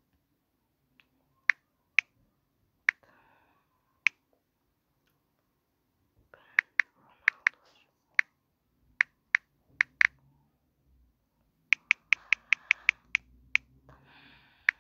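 Typing on a phone's touchscreen keyboard: sharp, separate key-tap clicks at an irregular pace, with a quick run of about ten taps late on.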